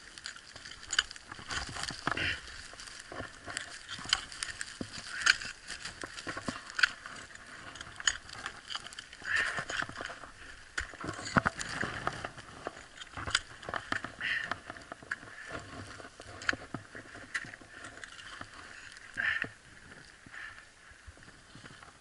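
Ice axes striking and scraping hard frozen snow and ice, with crunching steps and clothing rustle close to the microphone, in an irregular run of short clicks and scuffs and a few louder scrapes.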